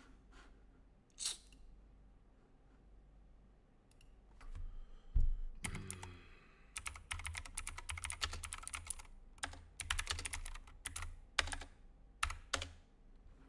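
Typing on a computer keyboard: quick runs of key clicks in bursts through the second half, entering a search. A single click about a second in, and a dull thump about five seconds in, the loudest moment.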